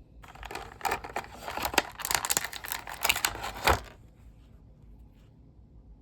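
Action figure packaging being crinkled and torn open: a dense run of crackling and tearing that stops about four seconds in.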